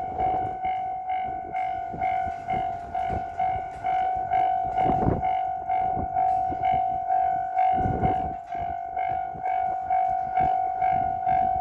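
Japanese railway level-crossing warning bell ringing steadily, about two dings a second. Low rumbles swell up around five and eight seconds in.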